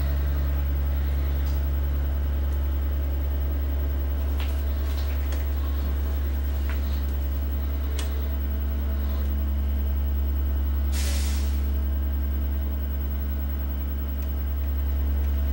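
Steady low electrical hum on the electronics repair bench, with a few faint clicks and taps of soldering-iron work while a small ceramic capacitor is desoldered from a CRT TV's circuit board, and a short hiss about eleven seconds in.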